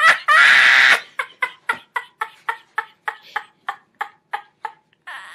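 A woman laughing hard: a loud high shriek of laughter, then a long run of short pitched laughs at about four a second, slowly getting weaker.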